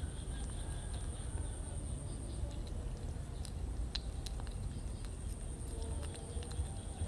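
Kitten chewing and licking small boiled fish: scattered small clicks over a steady low hum and a thin, steady high-pitched whine.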